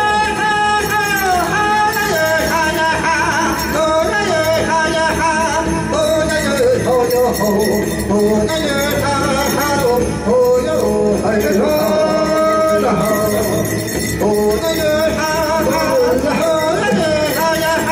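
Music accompanying a Native American hoop dance: a pitched melody of held notes that slide up and down, with jingling bells.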